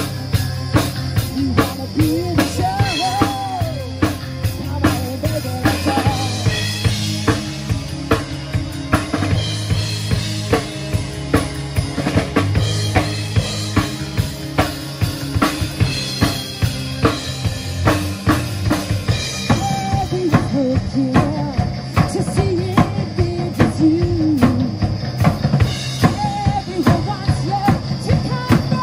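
Live rock band playing amplified: drum kit keeping a steady beat with kick and snare, electric bass, and an electric guitar playing a lead line with bent notes.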